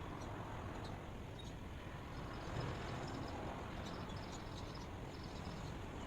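Outdoor dawn ambience: insects chirping in short, scattered high notes over a steady low rumble and hiss.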